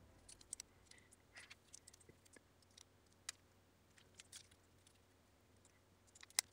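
Faint, scattered light clicks and ticks of small plastic and metal computer-mouse parts being handled, with a slightly sharper click about three seconds in and another near the end.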